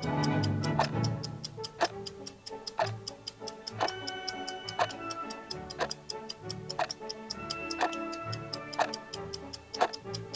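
Clock ticking sound effect, a sharp tick about once a second, over background music with sustained notes.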